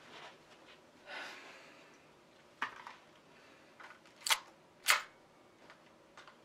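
Handgun being handled, giving a series of sharp mechanical clicks; the two loudest come about half a second apart, roughly four and five seconds in, with a soft rustle of movement about a second in.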